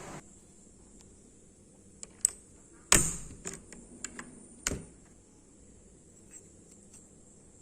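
Key presses on an HP GK320 mechanical keyboard's clicky blue switches: a handful of scattered, sharp clicks between about two and five seconds in, the loudest near the middle.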